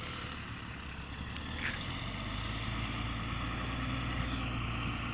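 A vehicle engine running steadily, growing a little louder about two seconds in.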